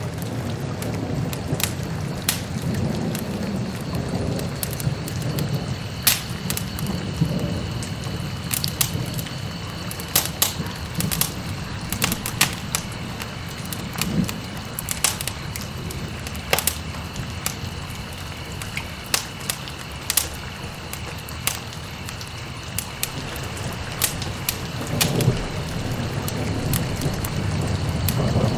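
Food sizzling in a hot frying pan: a steady hiss with scattered crackles and pops.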